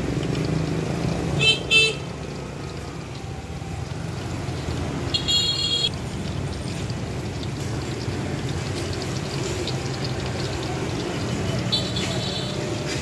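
Vehicle horns honking over steady street noise: two short beeps about a second and a half in, a longer honk around five seconds, and another near the end.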